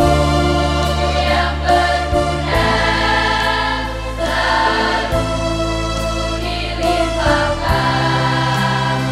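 School choir singing together in harmony, over sustained low accompaniment notes that change chord about every two and a half seconds.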